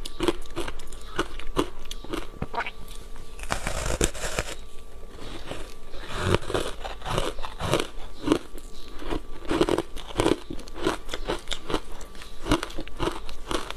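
Close-miked crunching and chewing of crunchy foam block ice coated in matcha powder: a dense run of sharp, irregular crackles and crunches, several a second, as the ice is bitten and chewed.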